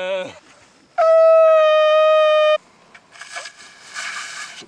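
A curved animal horn blown in one steady, single-pitched blast lasting about a second and a half, cut off sharply, followed by a stretch of rushing noise.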